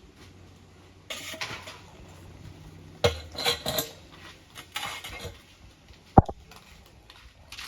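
Dishes and cups being handled and knocked together in short clattering bursts, with one sharp knock about six seconds in.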